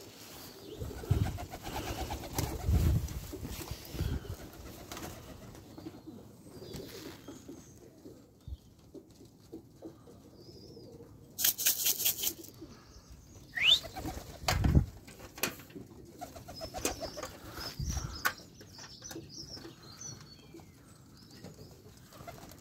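Domestic pigeons cooing at the loft, with a loud clatter of wings about halfway through.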